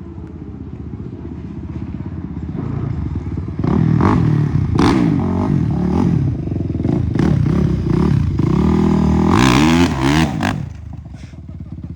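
Dirt bike engines running and revving up and down again and again. They are loudest through the middle, then drop away shortly before the end.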